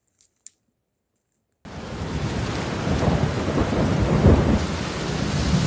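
Heavy rain drumming on a plastic tarp overhead, starting suddenly about one and a half seconds in, with a low rumble that swells and fades in the middle.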